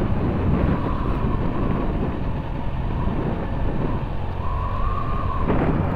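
Honda Elite scooter's engine running steadily while riding, under steady wind noise on the microphone; a faint higher tone comes in briefly near the end.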